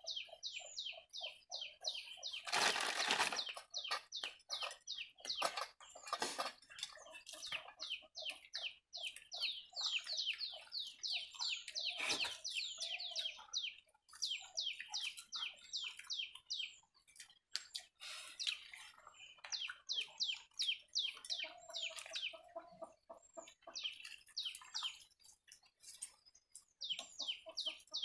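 Small birds chirping in a fast, near-continuous run of short falling chirps, several a second. A short burst of noise, the loudest sound, comes about three seconds in.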